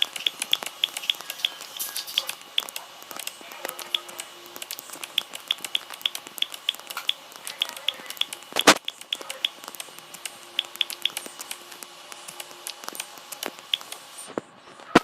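A run of small, sharp clicks, several a second and irregular, with one much louder snap about nine seconds in.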